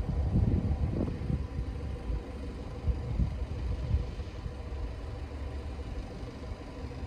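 Low, steady vehicle engine rumble that eases a little after the first second or so.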